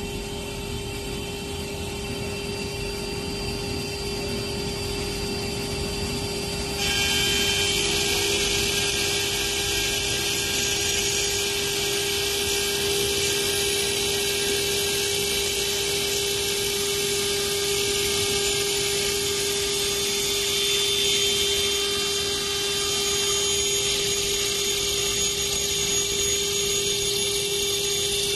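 Automatic glass milling and notching machine's spindle running with a steady whine as its water-cooled cutter mills into a glass sheet. About seven seconds in, a louder high-pitched grinding hiss sets in and holds.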